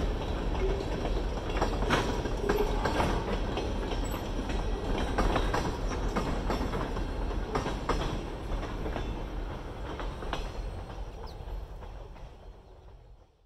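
Freight train's tank cars and caboose rolling past over a road crossing, steel wheels clacking irregularly over the rail joints above a steady rumble. The sound fades out near the end as the last car clears.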